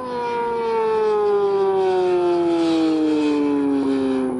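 Yamaha R6 sport bike's inline-four engine running at high revs on track, its note sliding steadily down in pitch as the bike goes past. It grows louder in the first second and fades a little near the end.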